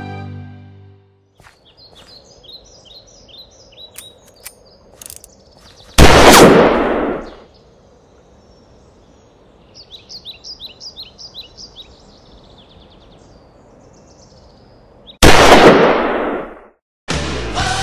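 Outdoor background with birds chirping, broken twice by a very loud sudden bang that dies away over about a second and a half, the two bangs about nine seconds apart. Rock music starts near the end.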